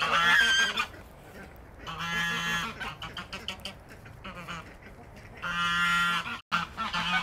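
Sebastopol geese honking: long honks at the start, about two seconds in and about five and a half seconds in, then a quick run of shorter honks near the end.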